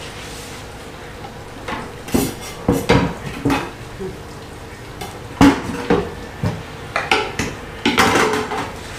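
Dishes and cutlery clinking and clattering at a kitchen sink: a string of irregular knocks and clinks, the loudest about five and a half seconds in.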